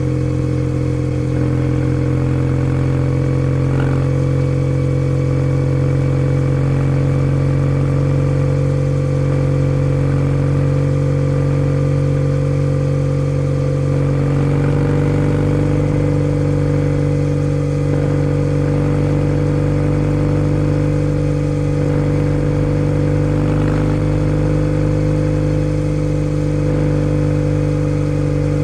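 Kawasaki W650's air-cooled parallel-twin engine with a POSH W1 full aftermarket exhaust, running steadily while riding at a cruise. The engine pitch shifts slightly about halfway through.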